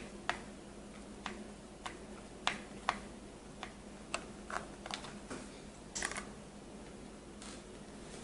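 Irregular light clicks and taps of a small screwdriver working screws out of a plastic gaming mouse's base, with small screws set down on a wooden tabletop; a quick cluster of clicks about six seconds in.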